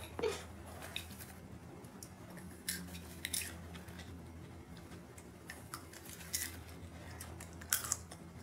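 Faint, scattered small clicks and crackles of fingers handling something small, over a low steady hum.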